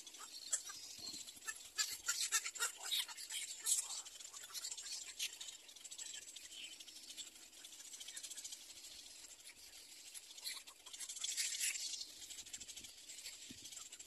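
Little egret chicks in the nest chattering in rapid clicks, in bursts that are densest over the first few seconds and again about eleven seconds in.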